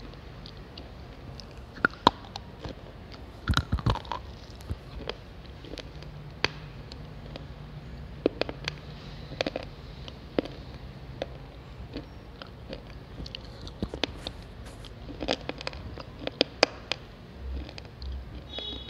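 A slate pencil being bitten and chewed: sharp, brittle cracks and crunches come one by one, bunched most densely about three and a half seconds in and again near the end.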